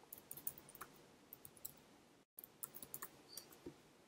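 Faint computer keyboard typing: irregular light keystroke clicks spread through, as a name is typed in.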